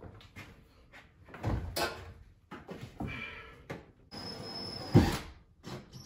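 Knocks and scrapes of a stainless steel range hood being lifted and slid down onto its wall anchors, with a heavy thump about five seconds in.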